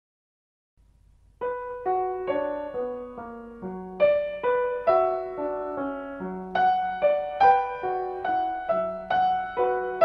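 Solo piano music, starting about a second and a half in after near silence.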